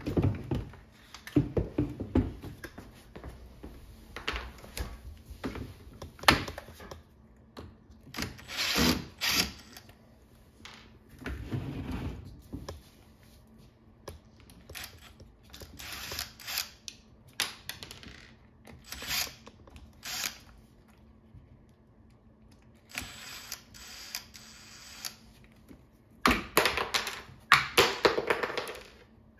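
Cordless drill running in short bursts, about seven times, turning screws in a folding chair's frame, with clicks and rattles of the chair's parts being handled between the bursts.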